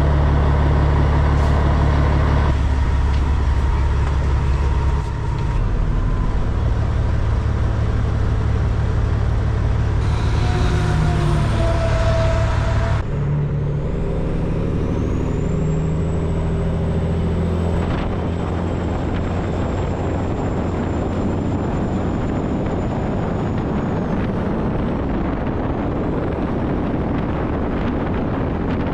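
Heavy truck's diesel engine running steadily under way. The engine note changes abruptly several times.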